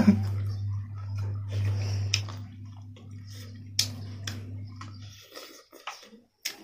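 Wet eating sounds of a person eating rice and duck curry by hand: scattered clicks and smacks from fingers working the food on the plate, and from chewing. A steady low hum runs underneath and stops about five seconds in.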